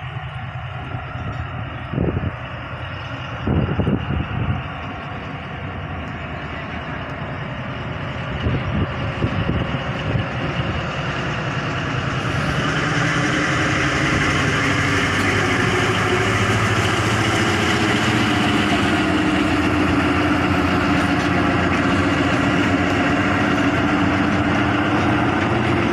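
Diesel-electric locomotive of the ZCU-20 class hauling a passenger train, its engine running with a steady hum that grows louder about halfway through as it comes close and passes. A few sharp knocks come in the first half.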